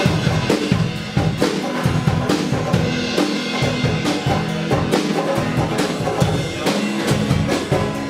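Live folk-punk band playing: acoustic guitars strummed hard over a steady, driving percussive beat.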